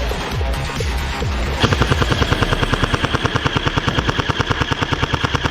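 Airsoft electric gun firing one long full-auto burst: a rapid, even rattle of shots with a gearbox whine under it. It starts about a second and a half in and runs on past the end. Before it there is background music with a thumping beat.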